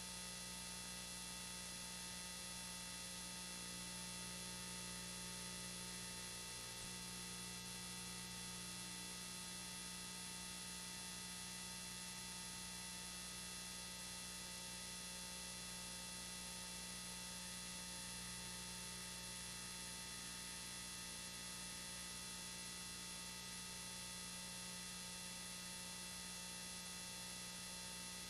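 Steady electrical hum and hiss with several constant tones and nothing else, the noise of a faulty audio track on an old home video recording.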